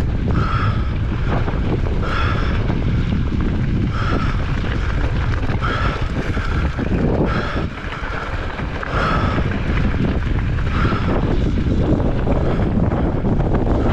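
Strong wind buffeting the microphone, a heavy low rumble of gusts, in 35 mph sustained winds with gusts up to 60 mph. A short high squeak repeats about once a second over it.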